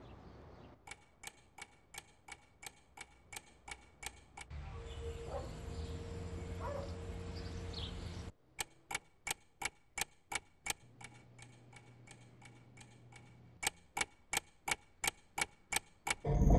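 Clock ticking fast and evenly, about three ticks a second. The ticking gives way for about four seconds to a steady low hum with a thin high tone, then comes back and is loudest near the end.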